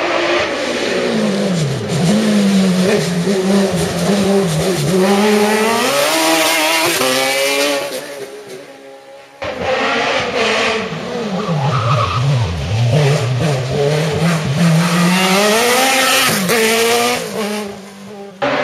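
Race car engine revving hard and dropping back again and again as it weaves through a cone slalom, the pitch rising and falling with each gate. The sound breaks off about halfway through and a second run of the same rising-and-falling revving follows.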